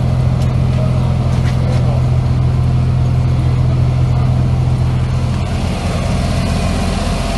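Tractor diesel engine idling steadily, a constant low hum.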